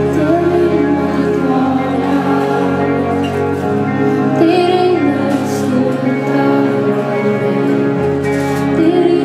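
A live pop band playing, with low held bass notes that change every few seconds under a guitar, and a woman singing short phrases over it.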